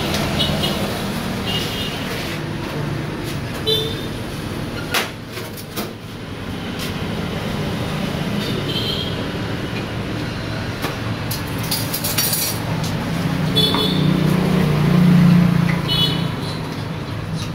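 Steady street traffic noise, with a handful of short, high clinks of cups and utensils at a coffee bar and a few sharp clicks. A low rumble swells about fourteen seconds in and fades two seconds later.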